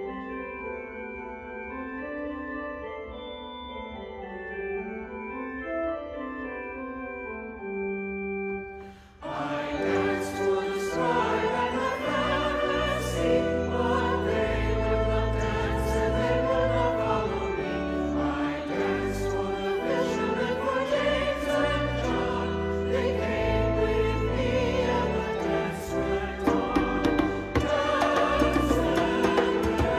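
Church organ playing an interlude alone, then about nine seconds in a mixed choir comes in singing the hymn over the organ, with percussion hits keeping the beat.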